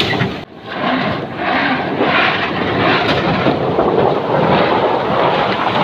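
Engine of a REO 6x6 truck running loud and steady as the truck moves along under a heavy load of bamboo, with a brief drop in level about half a second in.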